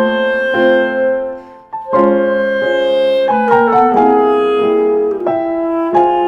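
Background music: piano with a woodwind melody, notes changing every half second or so, with a short drop in level about a second and a half in.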